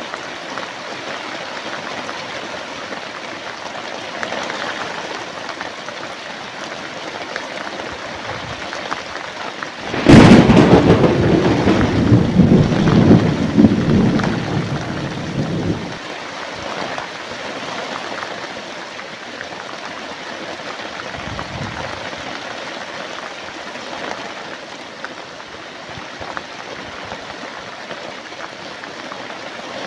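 Steady heavy rain, broken about a third of the way in by a sudden thunderclap that rumbles on for about six seconds before fading back into the rain.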